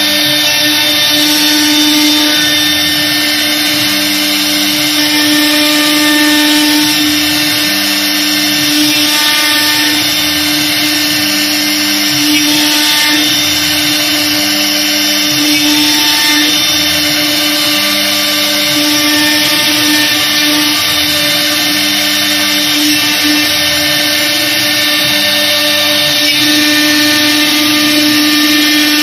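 Air-cooled spindle of a CNC router running at speed, its bit cutting into MDF: a steady whine over the hiss of the cut, with lower sounds that come and go every couple of seconds as the head moves.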